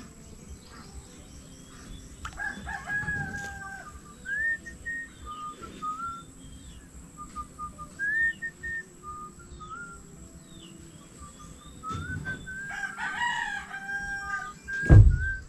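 A rooster crowing twice, about two seconds in and again near the end, with small birds chirping in between. A low thump just before the end.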